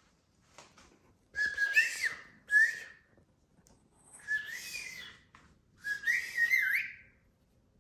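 Whistled exchange between a person and a pet parrot: four short whistled phrases with wavering, sliding pitch, the bird whistling back in answer.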